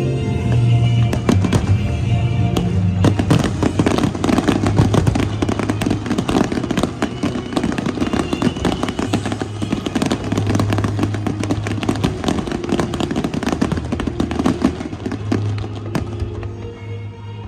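Aerial fireworks display: a dense, rapid volley of crackling bangs that starts about a second in and thins out near the end, with music playing underneath.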